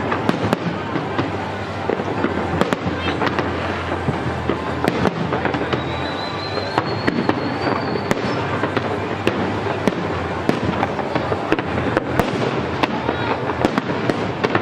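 Large aerial fireworks display bursting and crackling continuously, with many sharp bangs over a dense rumble. A thin high whistle rises slowly about six seconds in and lasts around two seconds.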